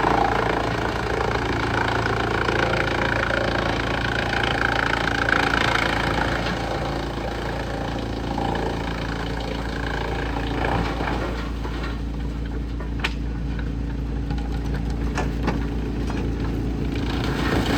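Wood chipper's engine running steadily, with a busier rattling noise over it for the first part and a few sharp clicks later on.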